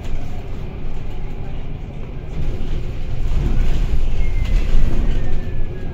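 Bus running along a guided busway, heard on board: a steady low rumble of engine and wheels. Over the last two seconds a thin whine slowly falls in pitch.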